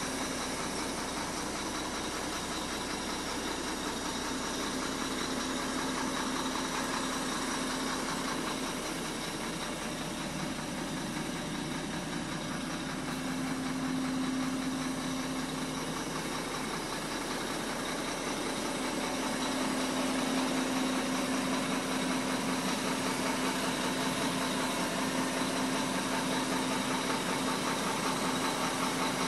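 Sinotruk Howo Max tractor head's diesel engine idling steadily, heard from inside the cab. It is a little louder in the last third.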